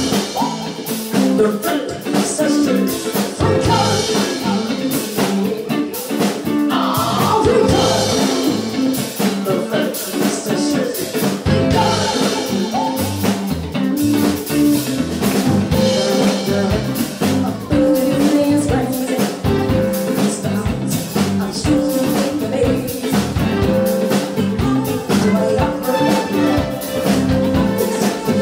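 Live band playing a song: a woman singing lead over electric guitars, keyboard and a drum kit, with a steady beat throughout.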